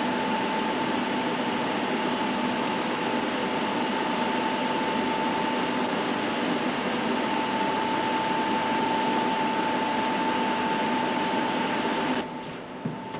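Steady, loud machine noise of a high-power long-wave broadcast transmitter hall: a rush of cooling air with a steady high whine and a lower hum under it. It cuts off suddenly near the end.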